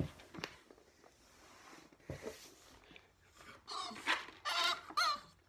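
A dog whining: a run of short, high cries close together in the second half, after a few faint clicks and rustles.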